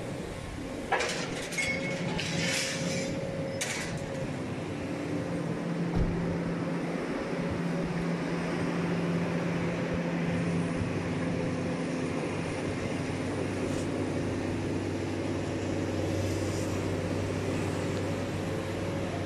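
Diesel engines of demolition excavators running steadily. About a second in there are three seconds of clattering and scraping, and a single thump comes near the six-second mark.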